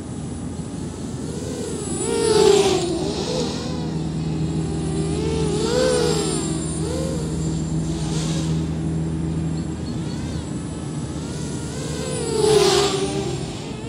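Mini 250-size FPV racing quadcopter flying, its motors and propellers whining and bending up and down in pitch with the throttle, loudest in two close passes about two seconds in and near the end.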